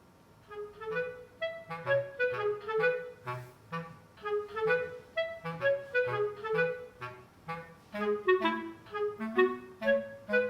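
Light instrumental background music that starts about half a second in: a bouncy melody of short notes, clarinet-like in tone, over a bass line.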